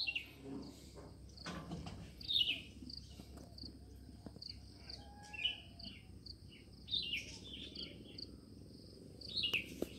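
Birds chirping, with a few short falling calls, over an insect's steady high trill that pulses a few times a second.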